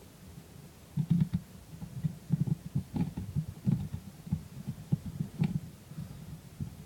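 Handling noise as a Torx T8 security bit is worked in the screws on the back of an Xbox 360 controller: irregular dull knocks and rubbing, with a few small clicks.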